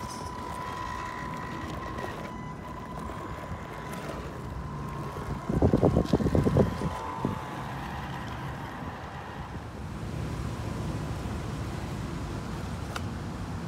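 Hobao DC1 RC crawler's electric drivetrain whining at a steady pitch as it crawls over loose dirt. About halfway through comes a short burst of loud, rapid rumbling, and after that the whine fades away.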